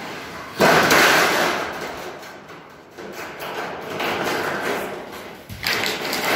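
Thin sheet steel being handled at a coil decoiler: a sudden clatter about half a second in, then a rattling, scraping noise from the sheet that fades, and a second loud burst near the end.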